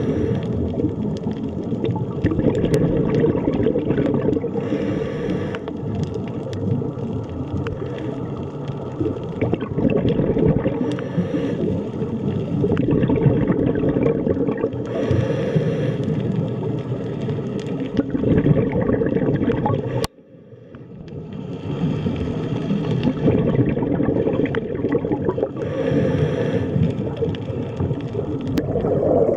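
Underwater rumble and gurgle of a scuba diver's breathing through a regulator, with bursts of exhaled bubbles about every five seconds over a steady low water noise. About two-thirds of the way through the sound cuts out abruptly and fades back in.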